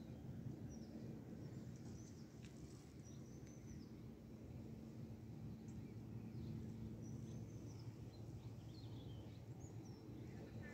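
Faint birds chirping, a scattering of short high calls over a steady low rumble.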